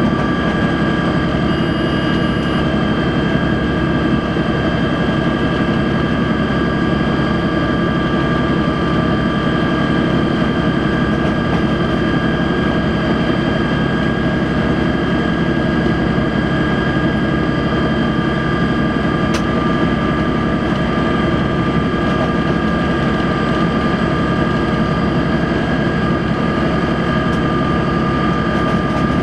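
Locomotive running along the line, heard from inside its driver's cab: a steady, loud drone with a constant high whine.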